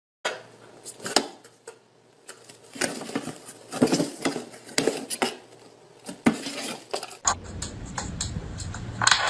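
Hard objects clattering and clinking, a dozen or so sharp knocks at irregular intervals; the background hum changes about seven seconds in.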